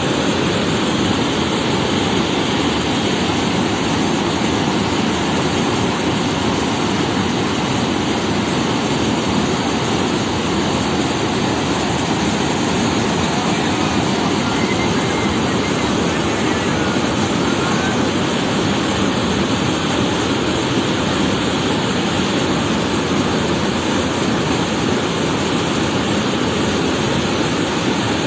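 Floodwater from heavy rain rushing in a swollen stream: a loud, steady rush of water with no change.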